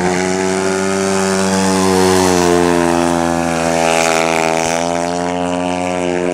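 350cc speedway bike engine running hard as the bike slides through a turn on a dirt track. It holds a steady, buzzing note that rises slightly about two seconds in.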